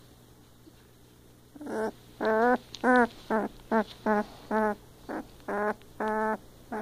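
Twelve-day-old puppy whining: a run of about eleven short, high cries starting about a second and a half in, some rising and falling in pitch.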